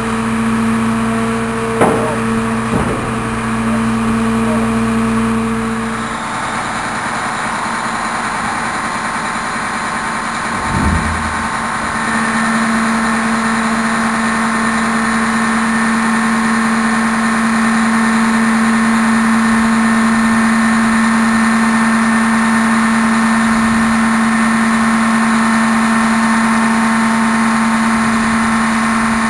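Diesel engine and hydraulic system of a DAF rear-loading refuse truck running steadily through a compaction cycle and the tailgate lift for ejecting. There are a couple of clunks early on and about eleven seconds in. From about twelve seconds in a steady hum holds as the tailgate rises.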